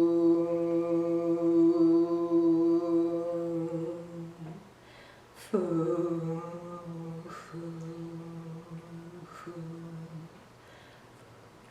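A woman's voice toning a long, steady hummed healing sound for the digestive system, which fades out partway through. A second held tone starts suddenly with a brief dip in pitch and is broken twice by quick breaths before it stops near the end.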